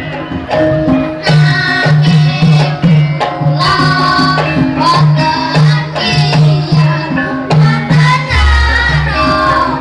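Javanese gamelan ensemble playing karawitan: metal-keyed instruments in an even rhythm under a drum, with voices singing from about a second in. A deep, lingering low tone enters about eight seconds in, typical of a large gong stroke.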